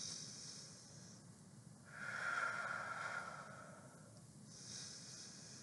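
A woman breathing slowly and deeply in a guided five-finger breathing exercise: a breath in through the nose, a longer, louder breath out through pursed lips from about two seconds in, then another breath in near the end.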